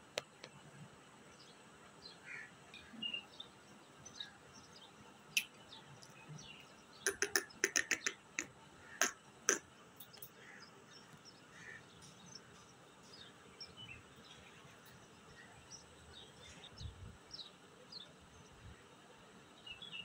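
Indian ringneck parakeet giving short high chirps scattered throughout as it climbs on a wire cage. From about seven to nine and a half seconds in comes a quick run of sharp clicks and rattles, the loudest sounds here, from its beak and feet on the cage wire.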